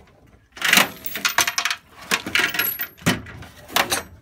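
Metal tools clinking and clattering in several quick bursts, as sockets or wrenches are rummaged through to find a smaller size.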